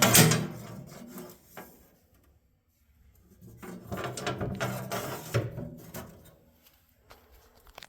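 Steel lathe cabinet's storage compartment being handled: a knock right at the start, then a couple of seconds of rubbing and scraping, and a faint click near the end.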